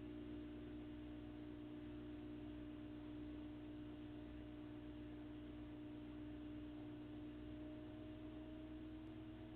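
Samsung front-load washing machine running, a steady motor hum and whine with no squeak; the whine begins to rise slightly in pitch near the end.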